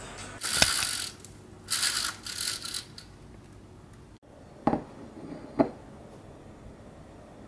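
A few short bursts of rattling and clacking, then two sharp knocks about a second apart as a glass dessert plate is set down on a table.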